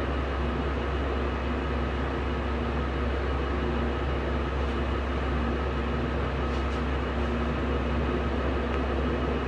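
A steady mechanical hum with a low drone and several constant tones, unchanging in level, with a few faint clicks about halfway through.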